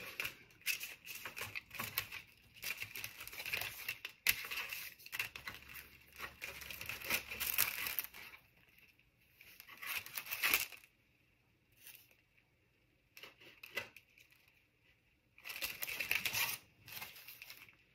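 Clear plastic sleeves and small paper packets of craft embellishments crinkling and rustling as they are leafed through by hand, in irregular bursts with short pauses.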